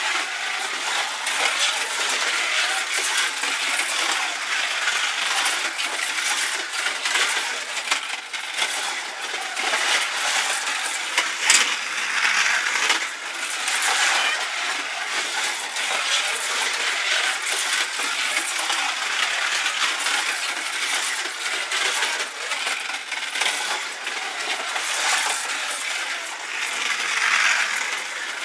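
Slot cars running on a plastic slot track: a continuous clattering, whirring rattle that rises and falls in level.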